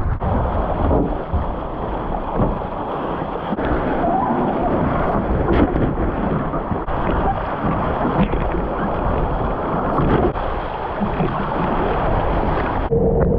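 Heavy wind buffeting the microphone over rushing water as a Spitfire catamaran sails. Near the end the sound changes abruptly, and a steady hum comes in.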